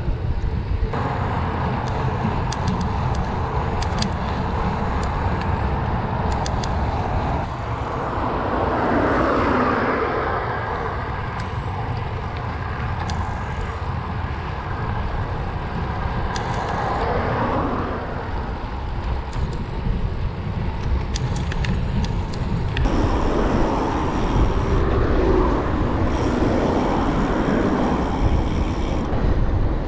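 Wind buffeting the microphone of a bike-mounted GoPro Hero 9 while riding, with steady rolling-tyre rumble and a few light rattles from the bicycle.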